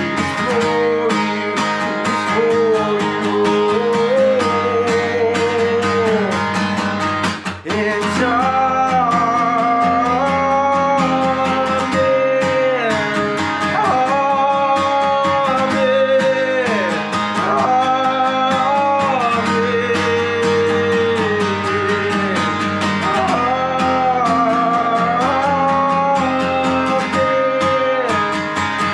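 Man singing a worship song over a strummed acoustic guitar, with long held notes on repeated "amen" phrases.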